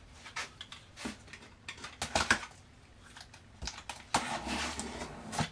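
Packing tape on a cardboard box being slit with a knife and pulled at by hand: irregular scratches and clicks, with a longer rasp of about a second a little after four seconds in.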